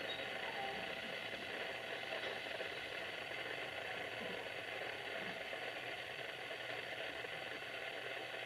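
Steady noise inside a JR West 221 series electric train, heard from just behind the driver's cab, even in level throughout with no distinct knocks or clicks.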